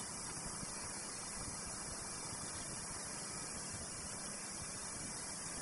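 Steady, even hiss with a faint low hum underneath.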